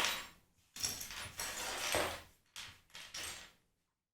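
A keyboard and its packaging being handled and slid about: a few scraping, rustling bursts, the longest in the middle.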